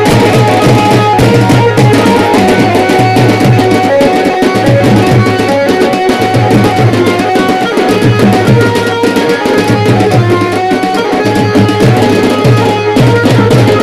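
Loud dance music with a steady, driving drum beat and a melody line over it.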